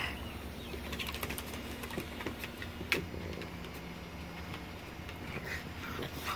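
Light clicking and tapping of a French bulldog's claws on wooden deck boards as it walks, with a cluster of small clicks about a second in and one sharper click about three seconds in.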